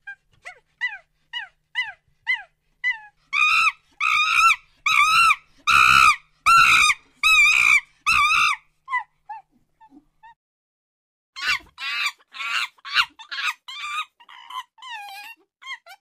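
Monkey giving a series of short, shrill calls about two a second. Soft falling notes build into a run of loud cries, which fade out. After a pause of about a second and a half, another loud run of cries comes near the end.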